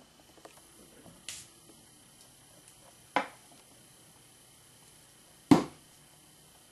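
Three sharp taps, well apart, as an acrylic paint dabber is pounced onto card stock to splat the paint. The last, near the end, is the loudest.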